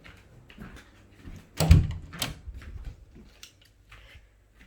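A single heavy thump about a second and a half in, followed by a sharp click and light rustling of things being handled.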